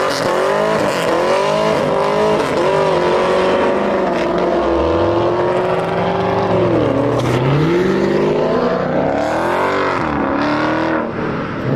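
Muscle-car engines at full throttle in a street race, a Dodge Challenger among them. The engine pitch climbs, holds high with a wavering note, then dips and climbs again twice near the end, while a second, lower engine note rises under it midway.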